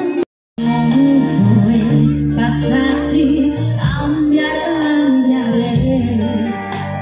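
A female vocalist singing live into a microphone, backed by a band with keyboard and electric guitar. The sound cuts out completely for a moment just after the start, then the song carries on.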